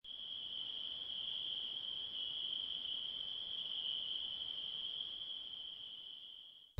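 A steady, high-pitched chorus of crickets, fading out just before the end.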